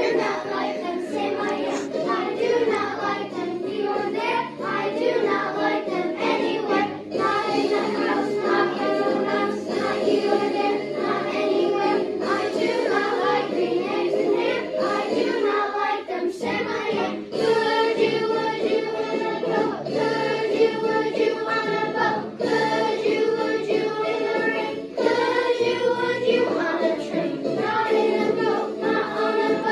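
A group of children singing a song together in unison, continuous throughout.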